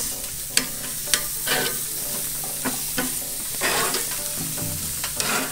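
Chicken thighs sizzling on a hot gas grill as they are turned over with metal tongs, with several sharp clicks of the tongs against the grate, the loudest about half a second and a second in.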